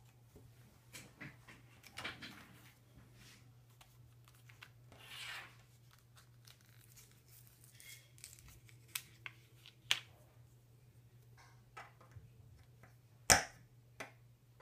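Plastic-and-card blister pack of a CR2032 coin battery being crinkled and torn open by hand, with scattered small clicks. Near the end comes a loud sharp click and then a smaller one, as the 2017 GMC Acadia key fob's plastic shell is pressed shut.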